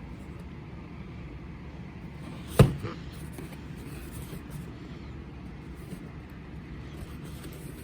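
Steady low background rumble, with one sharp knock about two and a half seconds in and a fainter one just after.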